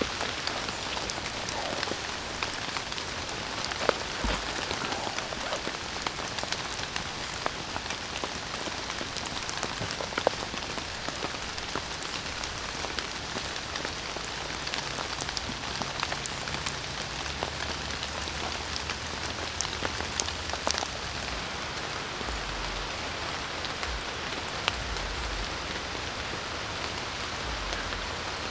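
Steady rain falling in woodland, with many sharp individual drop hits.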